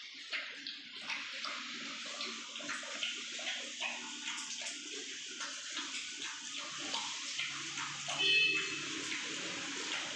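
A large mastiff-type dog eating soaked kibble and boiled pork from a steel bowl: wet, irregular chewing and lapping, many small clicks in quick succession, with one brief louder sound about eight seconds in.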